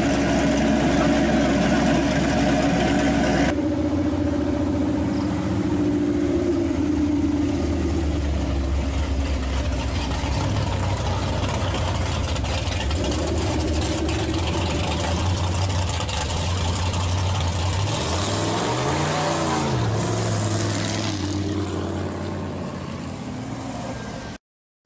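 V8 muscle car exhaust as a 1969 Camaro Z28 pulls away and drives along the street. About three and a half seconds in, the sound changes abruptly. Around eighteen seconds in, one rev rises and falls. The sound fades and cuts out just before the end.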